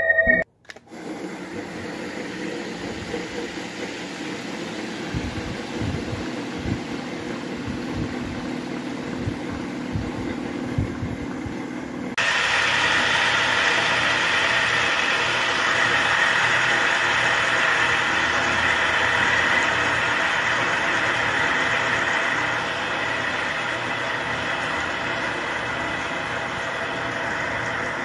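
Small plastic-bladed desk fans running: a steady whir of motor and blades with some low buffeting thumps. About twelve seconds in it steps up louder, with a steady high whine.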